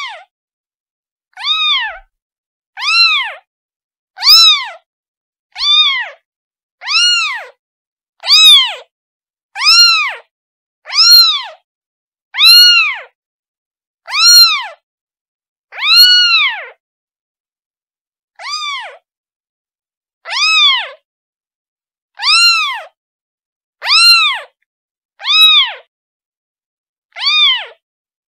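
A kitten meowing over and over, high-pitched calls that each rise and fall in pitch, about one every second and a half with a longer pause a little past halfway: a kitten calling for its mother.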